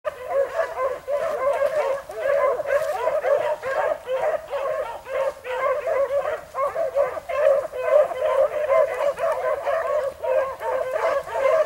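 A pack of rabbit dogs baying without a break, many voices overlapping, as they run a rabbit's trail.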